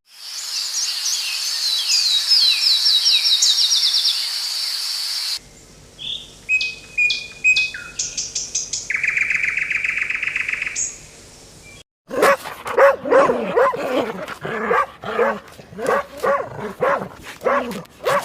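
Birds chirping in quick high notes, then scattered chirps and a buzzing trill. About twelve seconds in, an animal starts calling in a steady series of bark-like calls, roughly one and a half a second.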